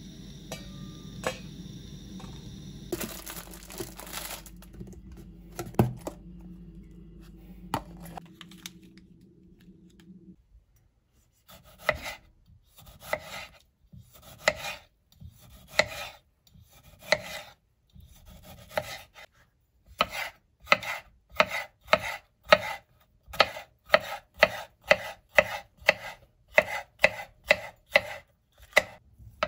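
A low hum with a few clicks stops about ten seconds in. Then a kitchen knife chops food on a cutting board, in a few separate strokes at first and then in a steady rhythm of about two strokes a second.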